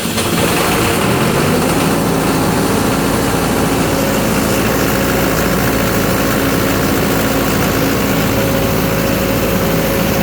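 Fire pump engine running steadily just after starting from the control panel on its newly replaced starter motor, a sign that it is working normally. A steady higher whine comes up partway through.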